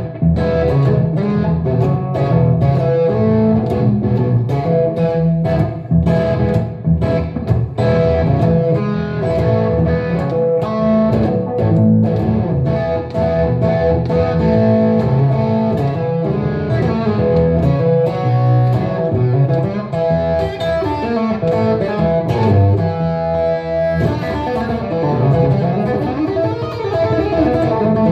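Electric guitar, a Telecaster, playing improvised blues lead lines through an amplifier, with many quick picked notes over steady held tones.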